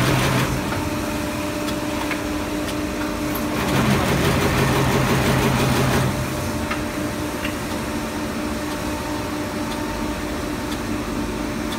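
Honyeu HY-A570 five-axis brush tufting machine running: a steady mechanical hum with a low held tone, louder for about two seconds in the middle, and light scattered ticks from the drilling and tufting heads.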